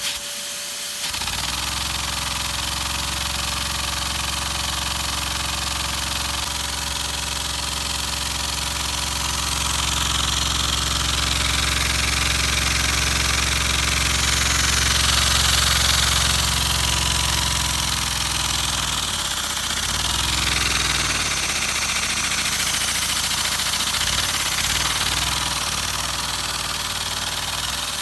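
Homemade LEGO vacuum engine, driven by a vacuum cleaner's suction through a hose, starting about a second in and then running at a steady speed with a fast, even clatter, over the continuous hiss of the vacuum cleaner's air flow. Its running falters briefly about two-thirds of the way through, then picks up again.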